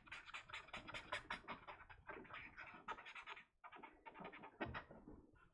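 Tombow brush pen scratching across drawing paper in quick, short strokes, several a second, with two brief pauses past the middle, as dark tones are scribbled in.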